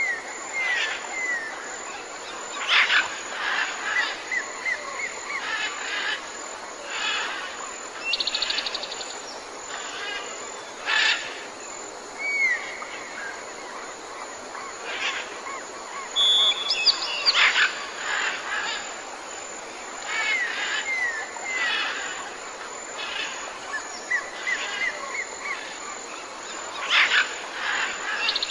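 Jungle ambience of several birds calling over a steady hiss. Loud, sharp calls come every few seconds, along with runs of three or four short curving whistles, and a fast, high trill sounds twice.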